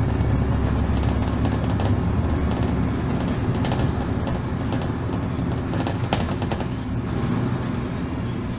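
Volvo Super Olympian double-deck bus heard from inside while under way: steady diesel engine drone and road noise, with interior rattles and a few sharp clicks about six seconds in.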